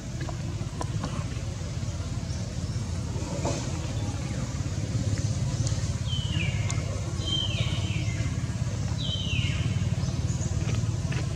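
Steady low rumble of motor traffic running throughout. Partway through come four short, high calls, each holding briefly and then falling in pitch.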